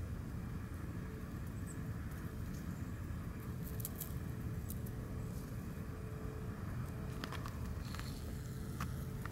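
Steady low outdoor rumble with a faint steady hum, and a few soft clicks, mostly in the last couple of seconds.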